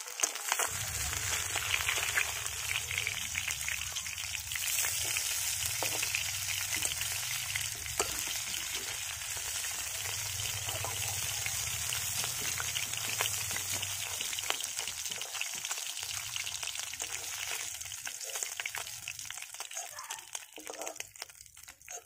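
Pieces of aar catfish frying in hot mustard oil in an aluminium kadai, sizzling with many small spits and pops, and a spatula scraping the pan as the pieces are lifted out. The sizzle dies down near the end as the fish comes out of the oil.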